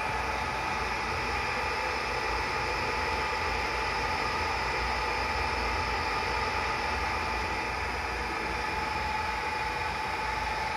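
BGA rework station running through a heating cycle, reflowing a laptop's AMD graphics chip: its blowers make a steady rushing noise with a faint constant whine.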